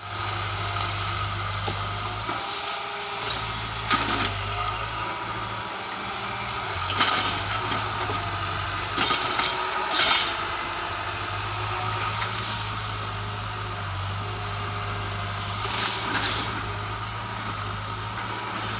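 Hitachi excavator's diesel engine running steadily, with several sharp cracks of wood splitting and breaking as trees and stumps are pushed over and torn out.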